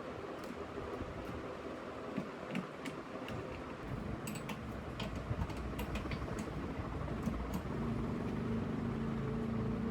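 Workshop machinery noise: a steady low hum with scattered light clicks and taps from hand work, the hum growing louder about eight seconds in.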